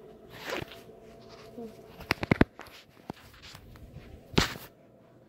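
Handling noise of a phone that is recording: a short rustle, then a quick run of clicks and knocks about two seconds in, and one louder knock near the end, as the phone is moved and set down.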